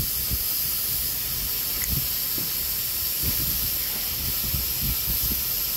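Steady hiss of escaping steam, with a low, uneven rumbling underneath.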